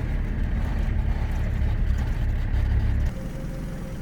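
Low, steady rumble of a car driving, heard from inside the cabin. It drops off abruptly about three seconds in, leaving a quieter rumble with a faint steady hum.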